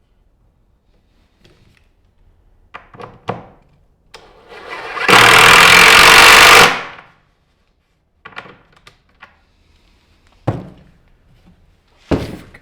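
A power tool runs once for about two and a half seconds, coming up to speed and then stopping, surrounded by a few sharp knocks of wood being handled.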